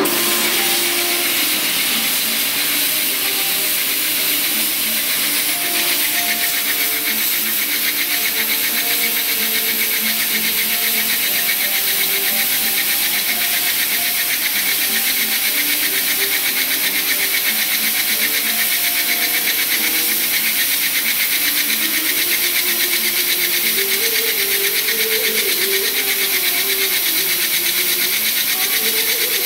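Compressed-air blow gun hissing steadily at the cutting tool of a CNC lathe turning a steel workpiece, with fainter wavering tones underneath.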